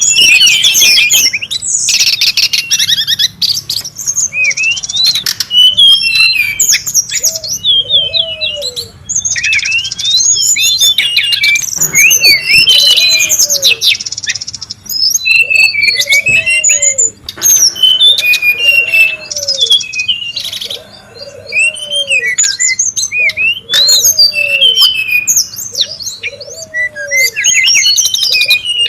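Brown-chested jungle flycatchers calling noisily: a dense, overlapping run of high chirps and quick trills. From about a third of the way in, a low arched note repeats roughly once a second beneath them.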